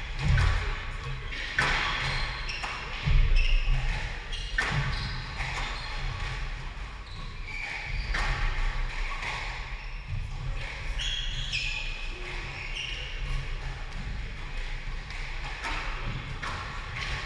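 Squash rally: the ball cracks sharply off rackets and the walls every second or two, with heavier thuds of footwork and short squeaks of court shoes on the wooden floor, ringing in the hall.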